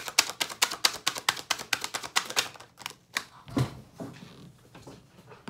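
Tarot cards being shuffled by hand: a quick, even run of card clicks, about six a second, that stops about two and a half seconds in, followed by a thump as the deck or a card is put down.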